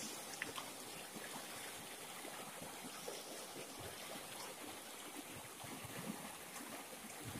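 Shallow rocky river flowing steadily, with small trickles and light splashes as fish on bamboo skewers are rinsed in the water.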